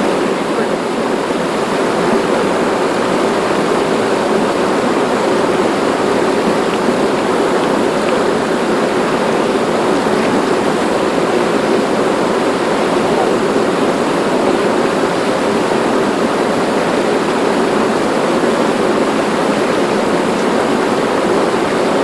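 Rain-swollen river water rushing over a low concrete dam, a steady, unbroken rush of falling water.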